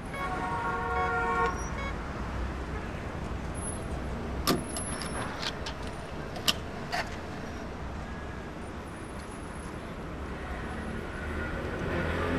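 Street traffic noise with a car horn sounding for about two seconds at the start, then a few sharp clicks in the middle.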